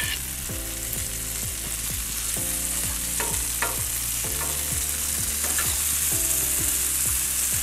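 Halved chorizo sausages sizzling steadily on a hot griddle plate, spitting in the fat they render out, with a few faint clicks. Low steady tones with a regular low beat run underneath.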